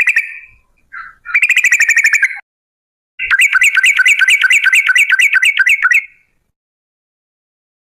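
Yellow-vented bulbul (trucukan) song: rapid rolling phrases of quickly repeated bright notes in three bursts, the last and longest running about three seconds, then silence for the final two seconds.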